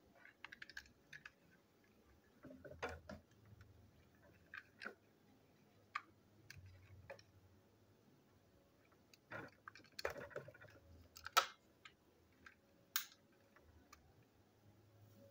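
Scattered light clicks and taps of small plastic toy-train parts and tools being handled on a tabletop, with a busier run of clicks about two-thirds of the way through.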